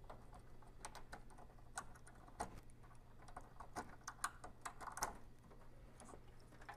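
Faint, irregular small clicks and rattles of fingers handling wires and pulling crimped wire connectors off the power switch on a metal electronics panel.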